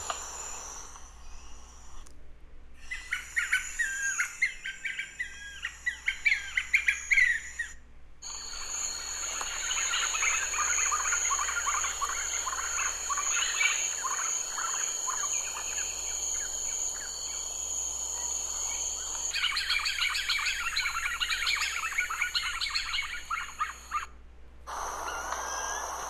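White-fronted nunbird recordings played one after another: three stretches of fast, dense chattering call notes, each cut in abruptly, over a steady high-pitched tone.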